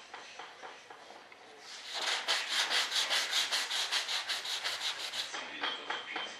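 Hand sanding of primer and filler on a model jet fuselage: quick back-and-forth strokes of sandpaper, about seven a second, faint at first and strongest from about two seconds in until about five seconds in.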